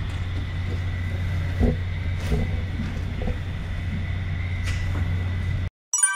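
Steady low hum with a couple of faint high tones and a few soft knocks, cutting off abruptly near the end. A short, bright chime follows.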